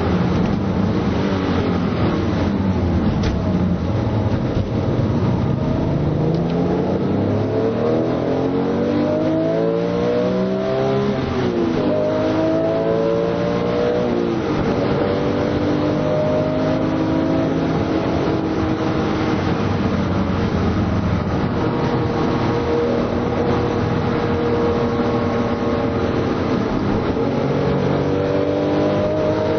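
Car engine heard from inside the cabin while being driven hard on a track: the revs climb and drop back at gear changes, about eleven and fourteen seconds in, then hold fairly steady. Near the end the pitch dips and jumps higher on a downshift, and the engine revs up again.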